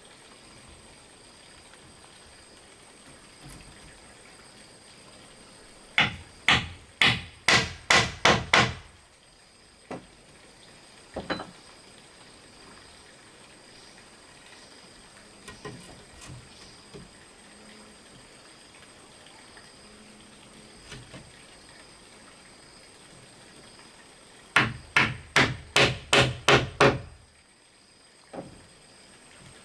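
Hard strikes on bamboo: a fast run of about six about six seconds in, a couple of single knocks after it, and a second run of about seven near the end.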